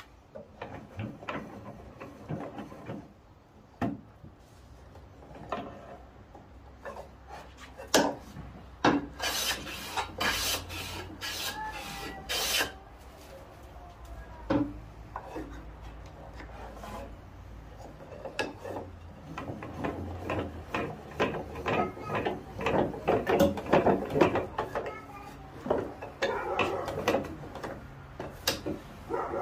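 Workbench leg vise being worked by hand: its wooden handle turns the steel screw to move the wooden chop, with scraping and rubbing of wood and screw and sharp knocks, several in quick succession early on and dense rubbing later.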